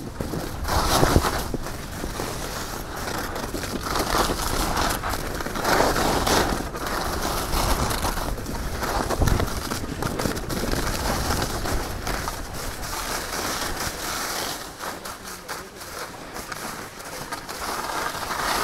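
Skis scraping and hissing over packed snow in surges a few seconds apart, quieter for a while near the end and swelling again at the close.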